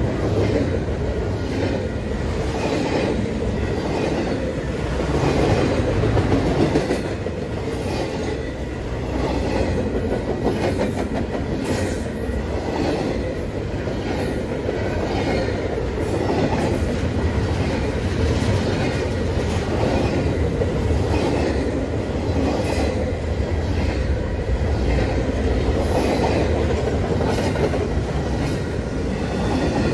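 Double-stack intermodal freight cars rolling past at close range: a steady rumble of steel wheels on the rails, with a clack repeating every second or two as each car's wheels go by.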